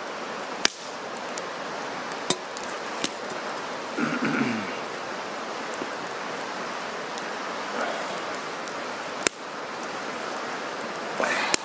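Wood campfire crackling, with several sharp pops from the burning logs. Hot water is poured from an enamel pot into an enamel mug early on, with a short pouring and clinking sound of pot and mug about four seconds in.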